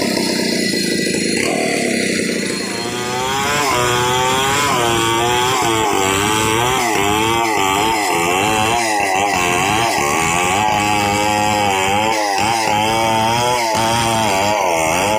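Stihl 070 two-stroke chainsaw ripping a log lengthwise into planks. Its revs sag about two seconds in, then climb back to full throttle and hold high, the pitch wavering as the chain cuts along the grain.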